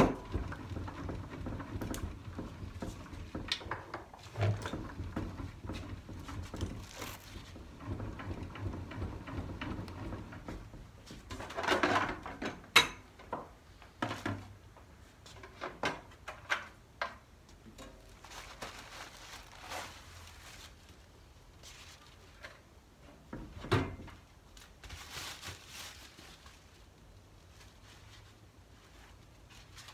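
A WEN benchtop thickness planer being handled and adjusted by hand with its motor off: the height-adjustment crank turning, with scattered clicks and knocks. A sharp clunk comes at the start, a burst of clatter about twelve seconds in, and a single knock near twenty-four seconds.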